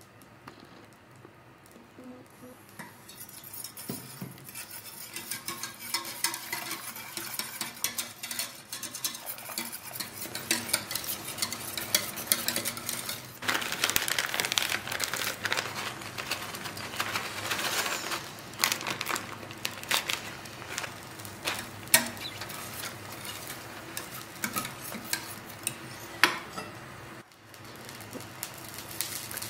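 Wire whisk stirring polenta in a stainless steel pot, scraping and clicking against the metal as the cornmeal thickens, with a few sharper knocks in the second half.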